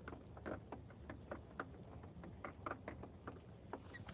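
Rain falling, heard as irregular drops tapping several times a second over a low, faint rumble.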